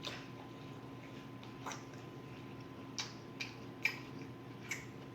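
Close-up eating sounds: chewing with about six short, wet mouth clicks and lip smacks spread through, over a faint steady electrical hum.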